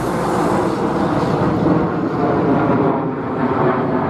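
Fire engine's diesel engine running steadily in the station bay. A car passes close by in the first couple of seconds, its hiss fading out.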